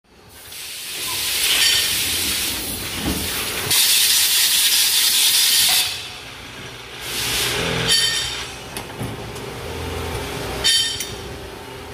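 CNC lathe with an automatic part loader working through its cycle: long hissing blasts, the loudest from about four to six seconds in, then short ringing metallic clanks about eight seconds in and again near the end.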